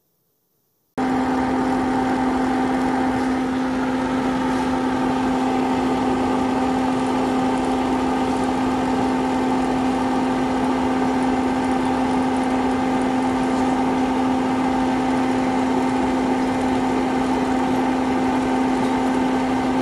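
A motor running steadily, a constant hum over a rushing noise, starting suddenly about a second in.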